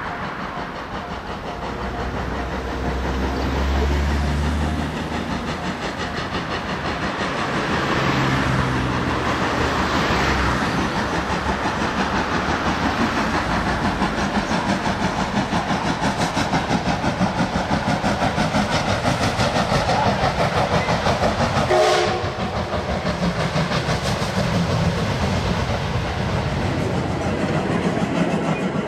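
JR West D51 200, a 2-8-2 steam locomotive, working hard with a train, its exhaust beating in a fast, steady rhythm over the clatter of wheels and coaches on the rails. The sound breaks off abruptly about three-quarters of the way through and goes on at a lower level.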